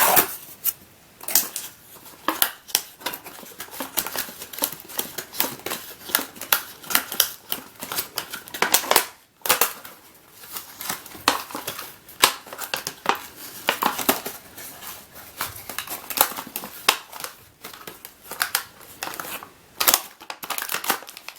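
Product box packaging being handled and pulled open by hand: an irregular run of crinkles, clicks and scrapes.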